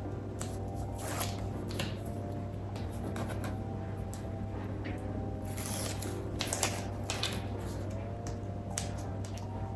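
Light rustling and crackling as the liner is peeled off double-sided tape on cardstock and the paper is handled, a few small clicks scattered through, over a steady low hum.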